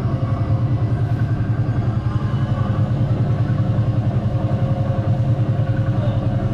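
Small engine of a vintage-style ride car on a guide track running steadily with a fast, even chug.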